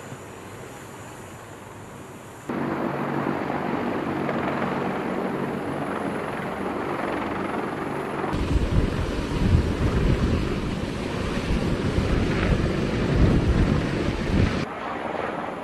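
CH-53E Super Stallion heavy-lift helicopters flying past with a steady turbine and rotor noise. It jumps louder about two seconds in, then turns into a heavy, uneven low rotor beat from about eight seconds in, and eases off near the end.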